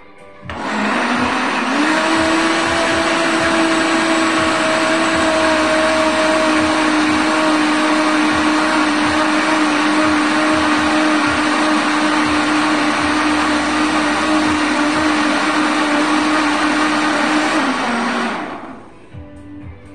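Countertop jug blender running, puréeing cooked peas and potato into a smooth soup. The motor spins up over the first second or so, holds a steady whine, then winds down and stops a couple of seconds before the end.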